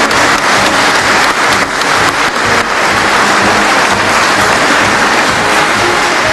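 Congregation applauding, a dense steady clapping.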